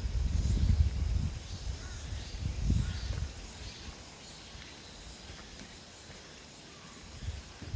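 Wind buffeting the microphone in gusts, strong for about the first three seconds and then easing off. Faint bird calls sound over it.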